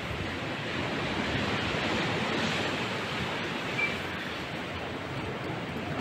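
Steady rushing of wind and Baltic Sea surf breaking on the groynes, with a low rumble of wheelchair wheels rolling over the pier's wooden decking.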